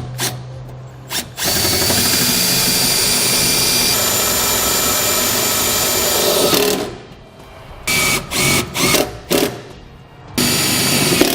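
Power drill driving self-tapping screws into the truck bed to mount a 7-way trailer connector base. It runs in one long steady spell of about five seconds, then several short bursts, then starts again near the end.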